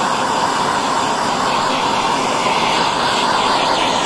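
MAP-gas hand torch burning with a steady hiss, its flame played on a zirconium coin to heat it for flame anodizing.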